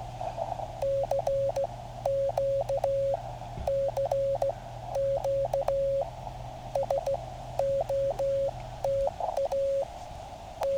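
Hand-sent Morse code on a straight key, heard as the sidetone of a QCX Mini QRP transceiver: a steady tone of about 600 Hz keyed in dits and dahs, sending a call that includes SOTA. The receiver's narrow-band hiss fills the gaps between characters and drops out while the key is down.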